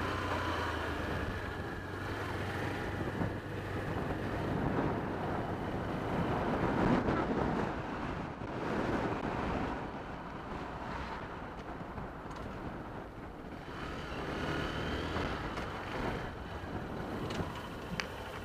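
Motorcycle running along at road speed, recorded from an onboard camera, with wind noise over the microphone. A steady low engine hum in the first few seconds fades into mostly road and wind rush, and there is a short click near the end.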